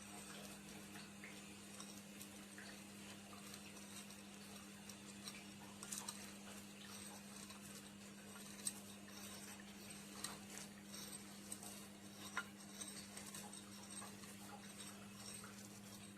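Faint scattered crackles and ticks of a roasted dried chili being crushed into salt by hand, over a steady low hum.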